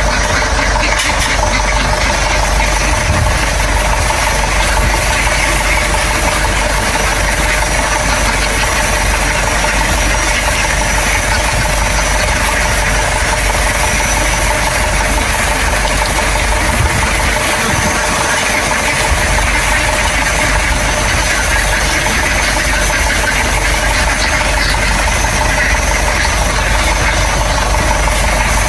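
An engine running steadily at an unchanging speed, loud and even.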